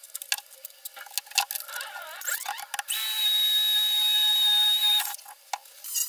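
Clicks and rattles of drill bits being handled in a plastic bit case, then a cordless drill runs with a steady high whine for about two seconds and stops abruptly.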